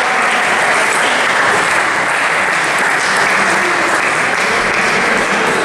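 An even rushing noise from a busy indoor table tennis hall, with faint clicks of table tennis balls from play at the tables.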